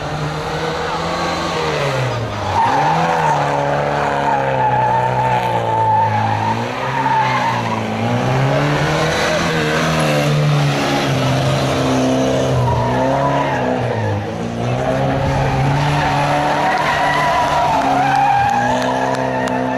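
Classic Mini's small four-cylinder engine revving hard, its pitch climbing and dropping back again and again as the throttle is opened and lifted. The tyres squeal through the hard cornering.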